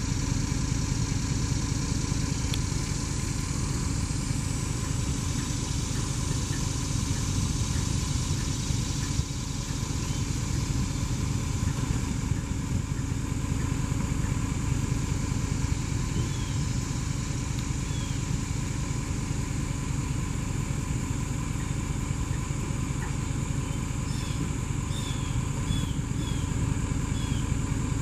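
An engine idling steadily with a low, even hum. In the second half, short high falling chirps repeat about once a second.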